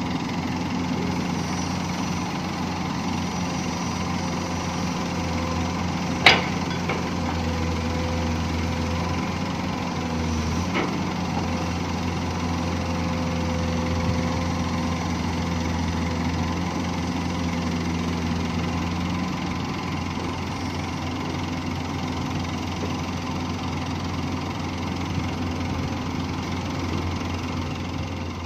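Komatsu PC200 excavator's diesel engine running steadily while the long-reach boom and bucket move, with a sharp knock about six seconds in and a fainter one about four seconds later.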